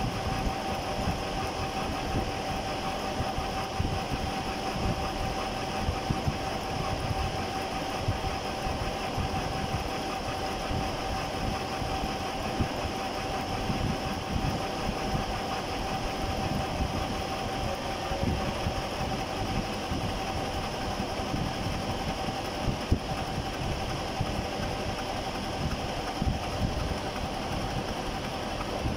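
Face mill with carbide inserts on a conventional milling machine taking a cut across a metal block at a slow feed: a steady cutting noise with a constant whine over fine, rapid rattling as the inserts chip the metal.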